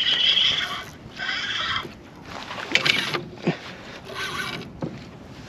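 Fishing reel whirring in about five short bursts while a hooked striped bass is fought on the rod.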